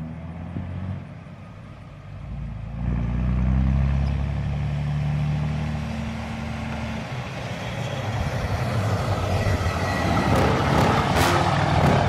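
Dodge Ram 2500 pickup coming up the road under power and passing close by. A steady engine note sets in about three seconds in and breaks off a few seconds later. Then engine and tyre noise grow louder as the truck nears, loudest near the end as it goes by.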